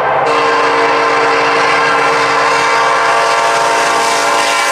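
Diesel locomotive air horn, the lead BNSF SD70ACe's, sounding one long steady chord for a grade crossing. It resumes a moment in after a brief break and is held over the noise of the approaching train.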